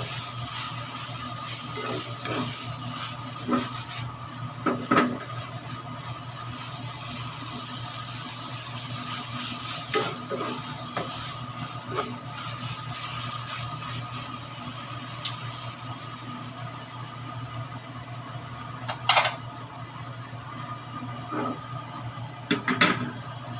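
Scattered scrapes and knocks of a spatula stirring food in a pan, with a few louder brief scrapes, over a steady low hum.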